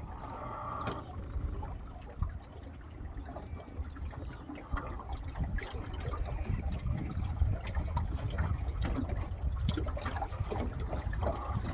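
Water splashing and slapping against the aluminium hull of a small boat under way, with a steady low rumble of wind and motion underneath.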